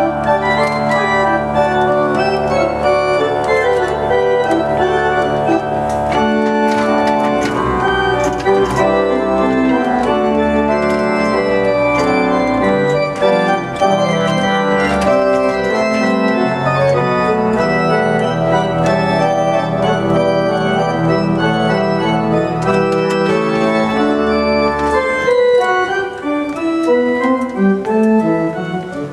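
Church pipe organ played: sustained full chords over low pedal bass notes. Near the end the notes move more quickly.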